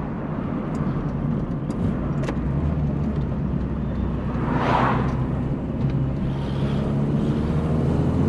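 VW Polo coupe engine running steadily on the road with tyre and road noise, a whoosh about halfway through. The engine has just had a new head gasket, cam belt and water pump and is running well, with no warning lights.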